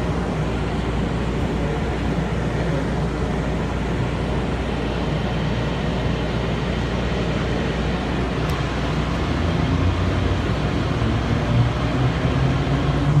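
Airport people-mover train running along its elevated guideway, heard inside the cabin: a steady running rumble. In the last few seconds a low hum grows stronger and the sound gets a little louder.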